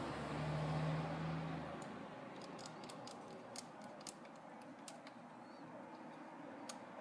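A low steady hum that stops about two seconds in, followed by scattered light clicks and ticks of small tools and parts handled on a laptop while the hard drive is secured.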